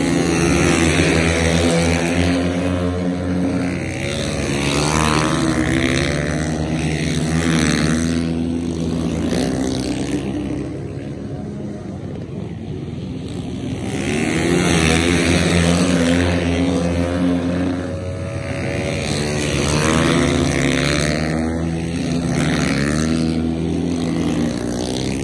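Flat-track racing motorcycles at race pace, engine notes gliding up and down in pitch as riders back off into the corner and get on the throttle out of it. The sound swells and fades several times as bikes pass.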